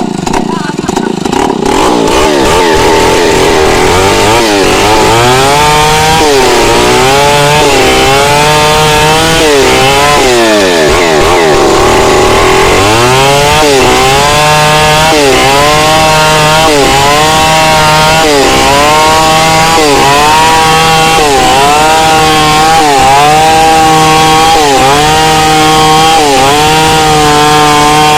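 Chainsaw running at high revs while cutting into wood, its pitch dipping and recovering about once a second as the chain takes the load. About ten seconds in, it drops toward idle and revs back up. Near the end it winds down.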